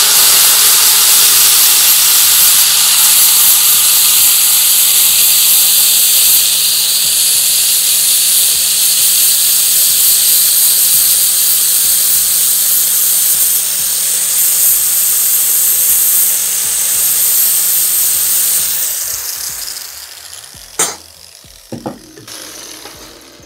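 Electric grinder grinding a fresh weld flat on a steel moped exhaust header pipe: a loud, steady grinding hiss over a constant motor hum. Near the end the motor winds down, and a couple of short knocks follow.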